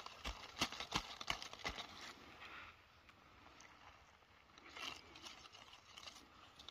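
Short-handled hand hoe chopping into damp soil and weeds, about half a dozen sharp strikes at roughly three a second, followed by quieter scraping and rustling and another short run of strikes about five seconds in.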